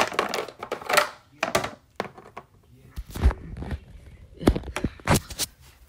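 A series of separate thunks and knocks, about half a dozen, from toys being moved and set down on a hard surface by hand.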